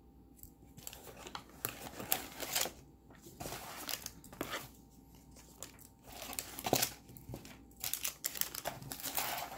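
Packaging being handled, crinkled and torn open as a subscription box is unpacked: irregular rustles and crackles, with a sharper crackle near the middle.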